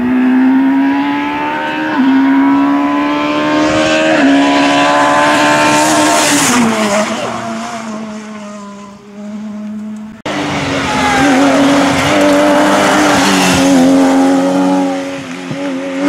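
Rally car engines at full throttle on a tarmac stage. One car pulls hard, its engine note stepping at gear changes about two and four seconds in, then falls away as it goes past; after a sudden cut about ten seconds in, a second car drives hard past with more gear changes.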